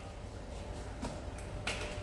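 Quiet room tone with a low hum, two faint light clicks from a milk bottle being handled about a second in and near the end, and a faint steady tone that comes in about a second in.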